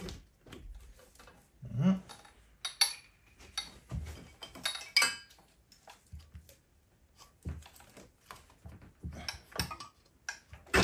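Scattered metallic clinks and knocks from hands and tools on the KTM 1190 RC8 R's V-twin engine as its cylinder head is worked loose. A few clinks ring briefly, around three and five seconds in.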